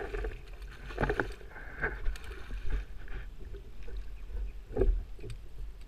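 Hooked fish splashing and thrashing at the water's surface beside a kayak, in several separate bursts, over a steady low rumble of wind on the microphone.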